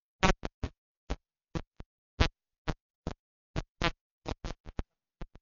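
Crackling audio dropouts: about seventeen short, irregular crackles and clipped fragments, some with a trace of voice in them, broken by dead silence. This is typical of a microphone or sound system cutting in and out.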